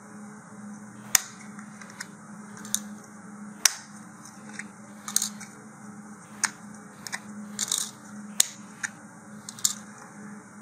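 Hard plastic model-rocket booster parts clicking and tapping as they are pulled apart and set down on a cutting mat: a dozen or so sharp, irregular clicks over a low steady hum.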